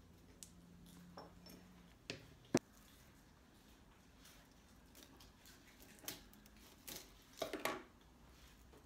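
Quiet tabletop craft work: a few scattered clicks and knocks of tools and materials handled on a wooden table, the sharpest about two and a half seconds in, then a quick cluster of snips and rustles near the end as stems of artificial grass are cut with scissors.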